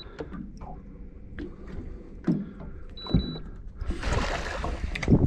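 Fishing reel and water during a pike fight on ultralight tackle: low handling rumble and clicks, a brief high whine about three seconds in, then about a second and a half of rushing, splashing water near the end as the fish thrashes.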